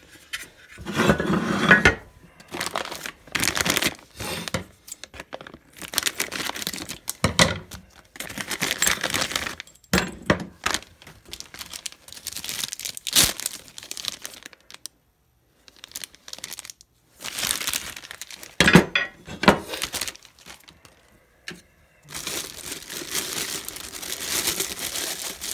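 Packaging crinkling and rustling in irregular handfuls as riser block kit parts are handled and packed back into their box, with a few sharp knocks among it.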